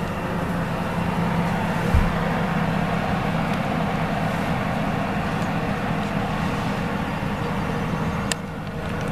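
Oven fan running with a steady whir and low hum. A low thump comes about two seconds in, and the whir eases a little near the end.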